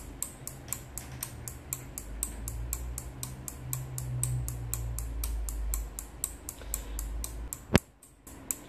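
An 8-channel module of SRD-05VDC-SL-C 5 V relays clicking as its contacts switch in a binary counting sequence, at about four clicks a second. The clicking ends with one louder click near the end.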